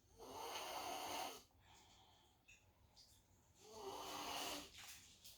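A young girl snoring in her sleep: two snores, each just over a second long, about three and a half seconds apart.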